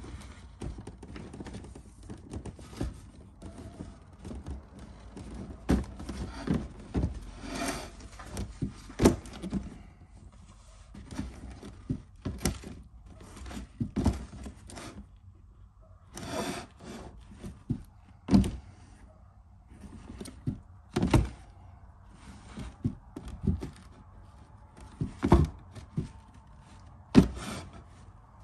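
Handling noise from a pair of Air Jordan 11 sneakers being turned, adjusted and set down on their cardboard shoebox: irregular thunks and knocks, a couple of dozen over the stretch, with light rustling between.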